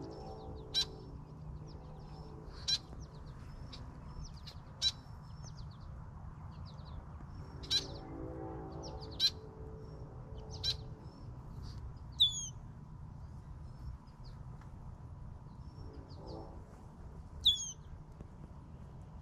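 Birds calling: short sharp chirps every second or two, and twice a louder call that falls in pitch, over a steady low rumble.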